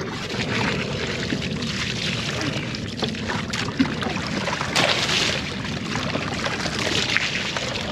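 Water splashing and lapping against a kayak hull, with wind on the microphone and a few light clicks and knocks of gear being handled.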